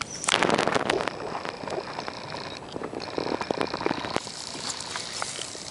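Dog pawing and gnawing at a green coconut on grass: a dense burst of scraping and crackling from the fibrous husk near the start, then scattered clicks and scrapes that thin out about four seconds in.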